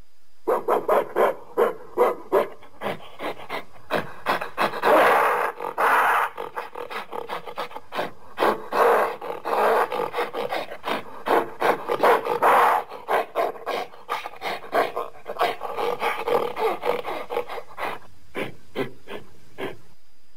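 Gorilla sound effect: a long run of short, rapid grunts and barks, with a few longer, louder calls mixed in.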